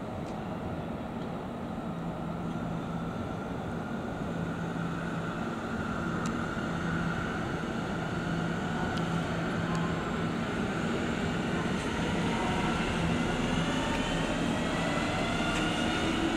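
DB class 1440 (Alstom Coradia Continental) electric multiple unit pulling out and passing, its traction drive whining in several tones that rise slowly in pitch as it gathers speed. The train grows gradually louder toward the end.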